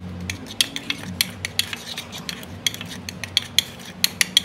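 Steel spoon stirring a dry spice-powder mix in a small bowl, with irregular sharp clicks and scrapes of the spoon against the bowl, several a second.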